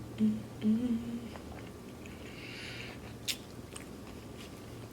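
Close-up chewing of a mouthful of gyro, with a few short hummed "mm"s of enjoyment in the first second or so and a couple of sharp wet mouth clicks a little past halfway.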